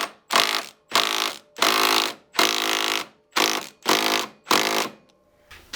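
Cordless power wrench with a 17 mm socket, pulsed in about eight short trigger bursts to loosen the top nut on a KYB rear shock shaft, stopping about five seconds in.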